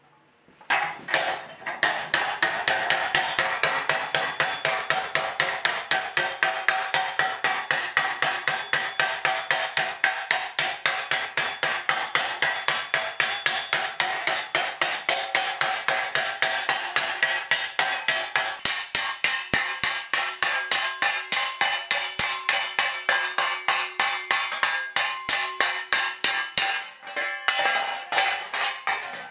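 Hammering a 4130 spring-steel armour plate on an anvil: rapid, even, metallic ringing blows, about four a second. The ring changes pitch about two-thirds of the way through.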